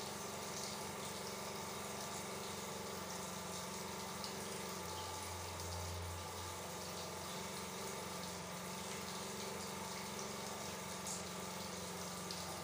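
Water running steadily, as from a tap or shower, with a low hum underneath.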